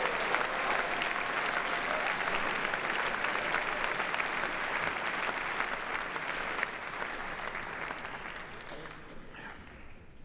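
Audience applauding, a dense patter of hand claps that dies away over the last few seconds.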